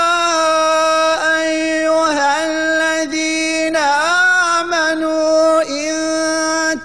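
A man reciting the Quran in the slow, melodic tajwid style, drawing each syllable out into long held notes with wavering ornamental turns, broken only by a few brief pauses.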